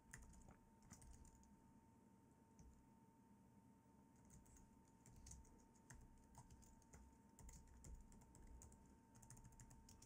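Faint typing on a computer keyboard: irregular runs of light key clicks, with a faint steady tone beneath.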